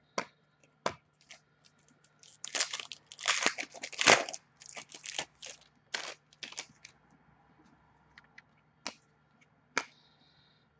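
Trading cards being handled by hand: cards slid, flicked and shuffled against one another. A dense run of rustling and scraping comes from about two to seven seconds in, with scattered single clicks and snaps before and after.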